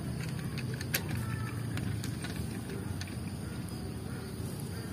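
Small electric motor of a battery-powered toy train whirring steadily while it is held, with light clicks of the plastic train cars being coupled back together by hand.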